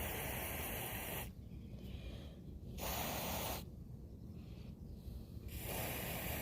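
Aerosol can of mass airflow sensor cleaner spraying in several hissing bursts with short pauses between, washing soot and dirt off a mass airflow sensor.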